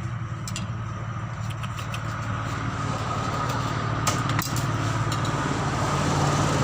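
A motor engine running steadily with a low hum, growing a little louder near the end, with a few light clicks over it.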